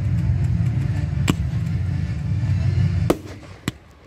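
Fireworks display: a heavy low rumble with a sharp crack about a second in, then a loud bang about three seconds in, at which the rumble cuts off suddenly, and one more crack shortly after.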